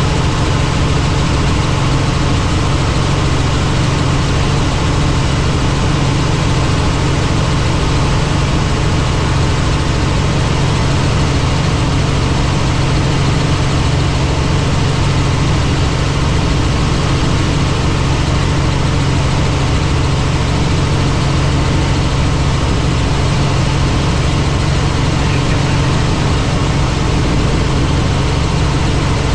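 Helicopter in flight: a steady, loud drone of engine and rotor, a strong low hum under a broad hiss.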